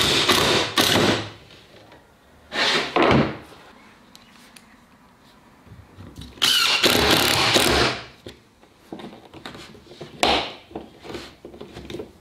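Cordless drill driving screws into wood in four short runs of the motor; the longest lasts about a second and a half just past the middle.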